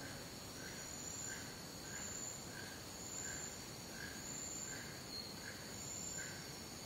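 Rainforest night ambience of insects: two steady high-pitched trills, with a lower chirp repeating about three times every two seconds.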